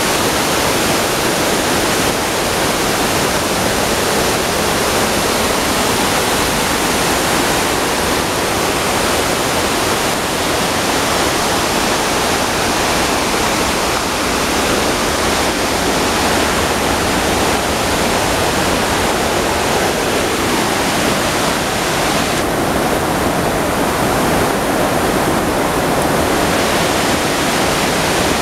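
Large waterfall in heavy flow pouring over rock slabs: a loud, steady, even rush of water.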